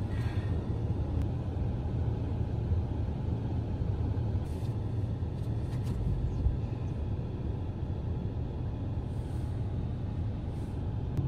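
Car engine and road noise heard from inside the cabin: a steady, low rumble.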